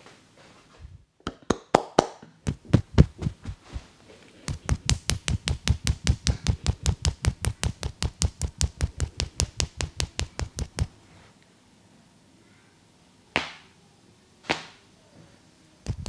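A barber's hands tapping rapidly in an Indian massage: a few scattered slaps, then an even run of percussive strikes at about six a second for some six seconds. Later come two single sharp sounds about a second apart.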